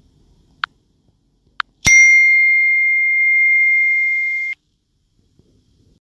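An electronic beep: two short blips about a second apart, then a click and a steady high-pitched tone held for about two and a half seconds that cuts off abruptly.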